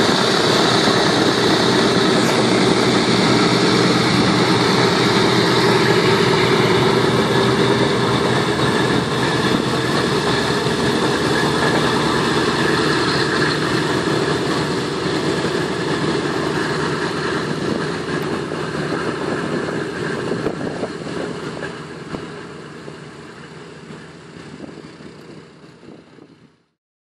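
B-17 Flying Fortress's four Wright R-1820 Cyclone radial engines running steadily as the bomber taxis on the apron. The sound fades away over the last several seconds.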